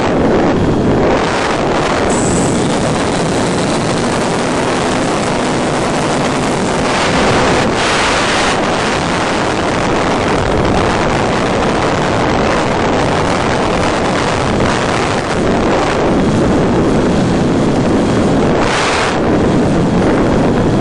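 Steady loud rush of airflow buffeting the onboard microphone of an FPV model plane gliding with its motor off, with a few brief hissy swells.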